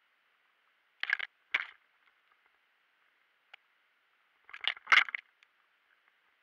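Short crunching, scraping bursts from movement along a dry, leaf-littered trail: two about a second in and a cluster around five seconds, over a faint steady hiss.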